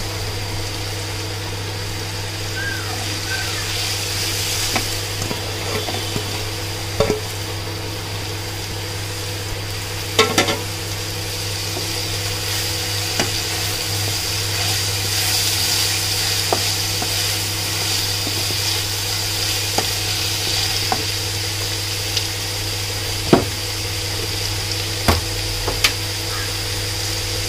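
Sliced onions sizzling in hot oil in a frying pan while being stirred with a wooden spatula, with a few sharp clicks of the spatula against the pan.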